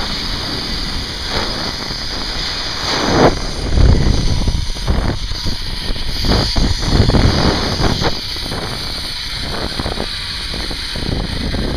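Wind buffeting the microphone in gusts during a fast zipline ride, over a steady high hiss from the trolley's pulleys running along the steel cable.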